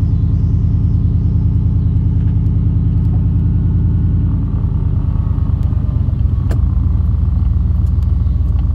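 A truck's engine running with a steady low drone and a fast, even pulse; its note shifts slightly about four seconds in.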